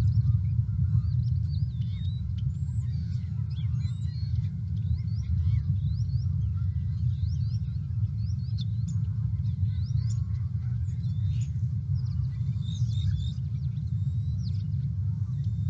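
Small birds chirping with many short, quick rising and falling whistled notes, over a steady low rumble.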